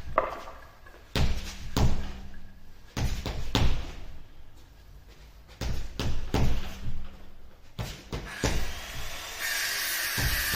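A series of irregular heavy thumps and knocks, a few a second at times, with a faint steady hum between them; a steady hiss comes in near the end.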